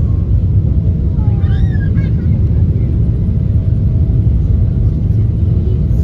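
Steady, loud low rumble inside the cabin of a Boeing 777-300ER climbing out just after takeoff: its GE90 engines at takeoff thrust and the rush of air over the fuselage. A faint high wavering sound rises briefly about a second and a half in.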